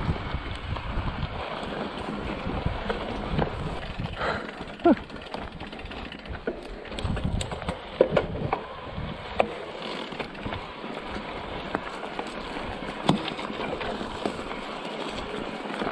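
Mountain bike riding over old railway sleepers and through tall grass: tyres swishing through vegetation while the bike knocks and rattles irregularly on the uneven track.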